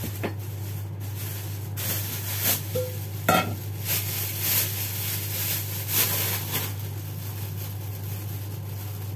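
Plastic bag crinkling and rustling as fish are handled in it and taken out, with a sharp knock about three seconds in. A steady low hum sits underneath.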